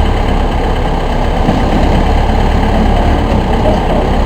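Semi-automatic baler running, a steady, loud engine drone with a strong low rumble.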